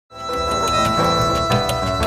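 Instrumental music starting abruptly, with held notes over a quick, even beat.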